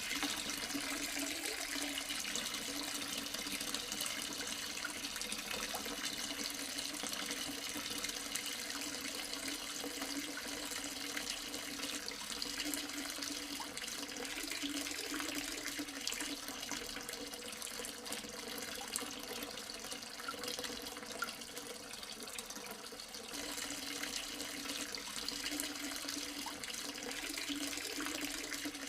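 Water steadily trickling and splashing down a small tabletop waterfall fountain driven by its recirculating pump.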